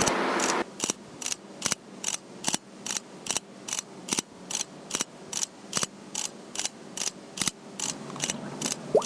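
A rushing noise cuts off just under a second in. Sharp, evenly spaced mechanical clicks follow at about two and a half a second.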